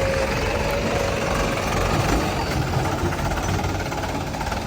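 Heavy diesel engines running steadily: a JCB 3DX backhoe loader working beside a Mahindra 295 DI tractor.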